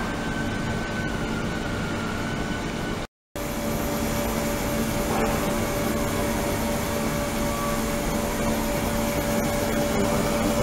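A 72 kHz, 300 W ultrasonic tank running with a water-filled plastic container in it: a steady hiss with a faint hum under it. The sound cuts out completely for a moment about three seconds in.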